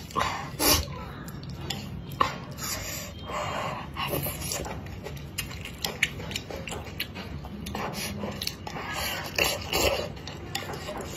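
Close-miked eating: chewing and mouth noises over spicy wontons in chili-oil soup, with chopsticks clicking against the clay pot, and a sip from the bowl near the end.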